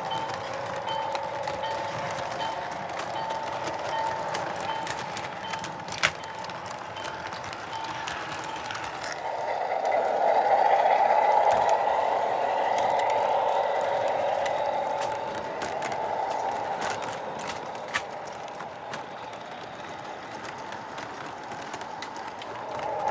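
O gauge model freight train running on three-rail track: a steady hum and rumble of wheels and motor with a faint regular ticking, growing louder about nine seconds in as the Williams Alco RS-3 diesel passes close, then easing off. Two sharp clicks stand out, about six seconds in and near the end.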